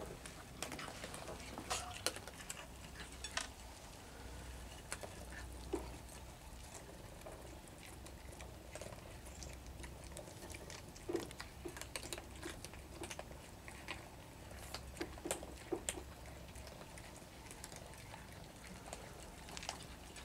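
Several cats eating dry kibble from a bowl: irregular small crunches and clicks of chewing and of kibble against the dish.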